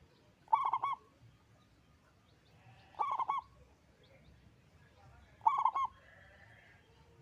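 Zebra dove (perkutut) cooing its song: three short phrases of quick stuttered coos, about two and a half seconds apart.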